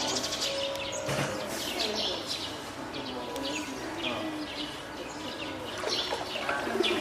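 Spotted seal pup calling loudly, over and over, in short calls that bend in pitch. The pup is being hand-reared, and its calls are taken for hunger, a wish to climb out onto land, or calling its keepers.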